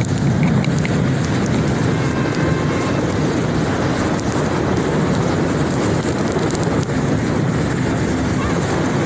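Steady wind buffeting the microphone, mixed with rushing spray, on an inflatable banana boat towed at speed through a motorboat's wake.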